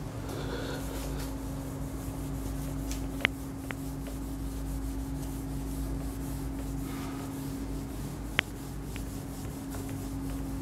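Whiteboard being wiped clean, an eraser rubbing across the board in repeated strokes, with two short sharp clicks about three and eight seconds in.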